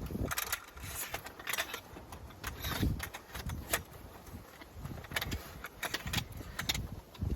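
Irregular light metallic clinks and rustles of gear being handled, with low rumbling underneath.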